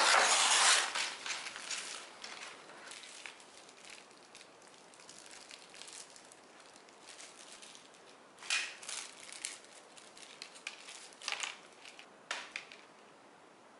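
Heavy paper gasket-set envelope ripped open by hand, a loud tear in the first two seconds, then rustling of paper and crinkling plastic bags as the gasket parts are unpacked, with short sharper crinkles about eight and a half, eleven and twelve seconds in.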